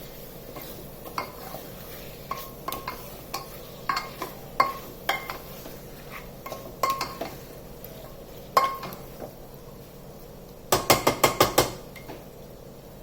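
Metal spoon stirring chicken pieces in a pressure cooker, clinking against the pot every second or so, then a quick run of about seven clinks near the end.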